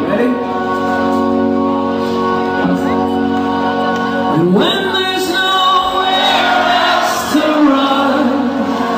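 Live rock band playing, recorded from the audience: a sustained organ-like chord with guitar, then a male voice sliding up and singing over it from about four and a half seconds in.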